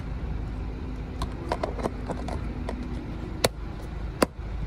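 Low, steady outdoor rumble of traffic with a faint steady hum for the first three seconds, and two sharp clicks about three and a half and four seconds in.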